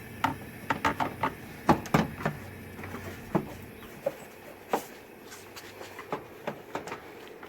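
Irregular clicks and knocks from hand tools and parts being handled during work on a car's A/C compressor, busiest in the first half.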